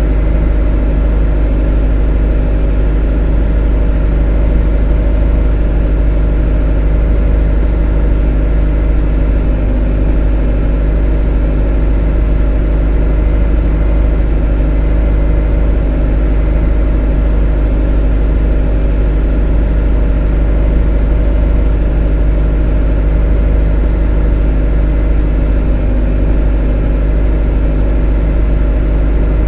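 A motor running steadily with an even, unchanging low hum and a set of steady tones above it.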